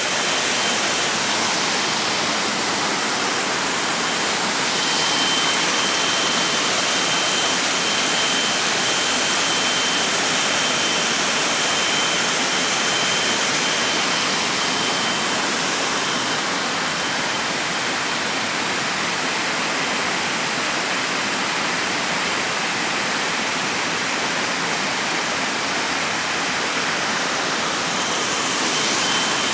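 Waterfall: a steady, loud rush of falling water, with a thin high steady tone over it through much of the time.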